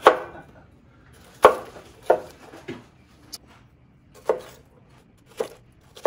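Kitchen knife chopping a white onion on a wooden cutting board: slow, separate knocks of the blade on the board, about eight in six seconds, unevenly spaced.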